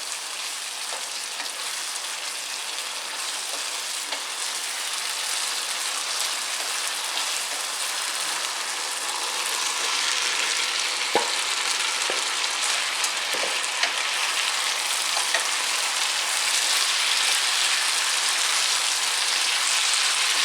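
Pork stir fry sizzling in a hot pan after the sauce has gone in, a steady frying hiss that grows louder about halfway through. A few sharp clicks come through as it is stirred.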